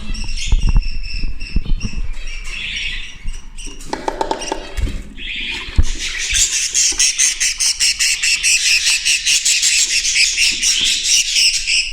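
Budgerigars squawking and chattering, with a few handling knocks in the first seconds. About halfway through it turns into a fast, unbroken run of chirps.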